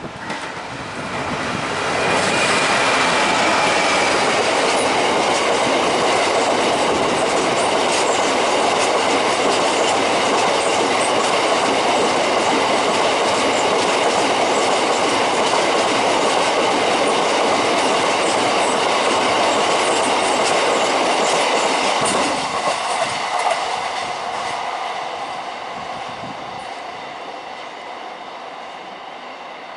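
A train passing at close range, its wheels running over the rails with a clickety-clack. It builds up over the first couple of seconds, stays loud for about twenty seconds, then fades away as it recedes.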